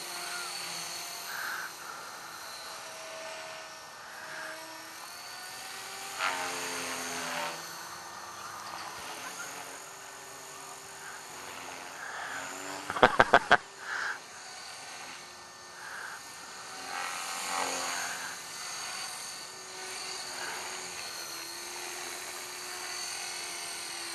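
T-Rex 450 electric RC helicopter's motor and rotors whining in flight, the pitch rising and falling as the throttle changes. About thirteen seconds in, a quick run of five sharp, loud clicks.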